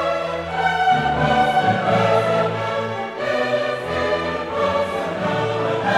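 Orchestral background music with long held notes that change about once a second.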